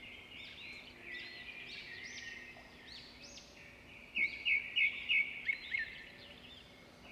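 Birds chirping and calling, with a run of about six loud, short chirps in the second half.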